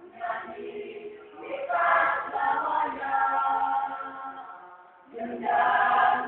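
A choir singing in long held notes, breaking off briefly about five seconds in and coming back louder.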